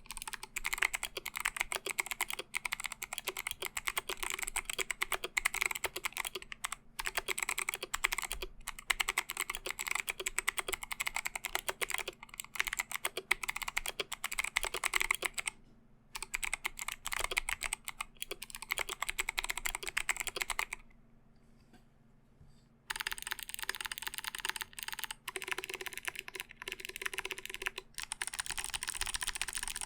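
Typing on a custom ID80v1 mechanical keyboard with stock Kailh BOX Navy clicky switches and DSA keycaps: a fast, continuous run of sharp key clicks, with a pause of about two seconds a little past the middle before the typing resumes.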